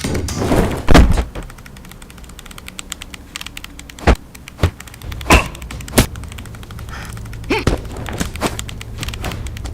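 A heavy thump about a second in, then a run of sharp separate thuds, four within about two seconds, followed by a few softer knocks.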